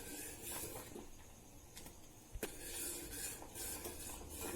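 A spoon scraping around the bottom of a pot as thin bajra (millet) flour porridge is stirred while it cooks, in repeated rubbing strokes. One sharp tap of the spoon on the pot about two and a half seconds in.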